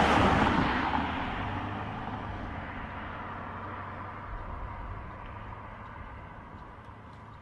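A road vehicle passing close by, loudest right at the start and fading steadily as it drives away.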